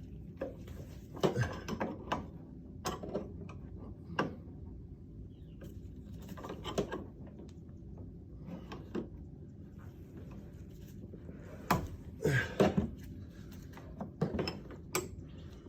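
Scattered metal clicks and taps of an open-end wrench being worked on a McLaren 650S's front suspension accumulator fitting, a short cluster of them about twelve seconds in, over a low steady hum.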